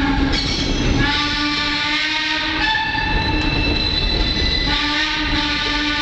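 Wheels of a Shay-hauled excursion train squealing steadily on the rails as it climbs: a held ringing squeal that breaks off briefly about half a second in and shifts to a higher set of tones for about two seconds in the middle. Under it runs the continuous rumble of the moving train.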